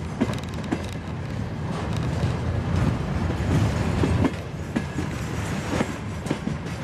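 Freight train wagons rolling past at close range: a steady low rumble of wheels on rail, with scattered clicks and knocks as the wheels pass.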